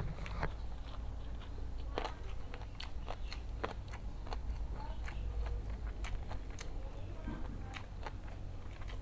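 Close-miked eating sounds of a person chewing a mouthful of rice and jengkol balado: scattered wet clicks and lip smacks, several a second, over a low steady hum.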